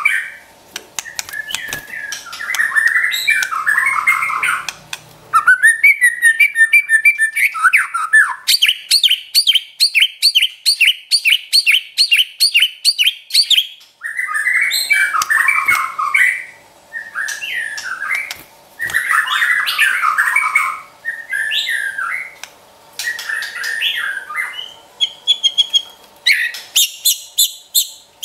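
White-rumped shama singing in varied, loud phrases of whistles and chatters. About eight seconds in it breaks into a fast run of evenly repeated high notes, its 'trotol', lasting about five seconds, then goes back to the varied phrases.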